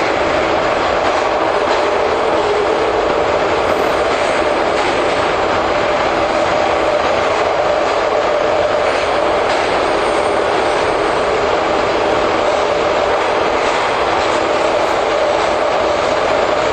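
JR 415 series electric train running at a steady speed: an even rumble of wheels on rail with a constant hum running through it.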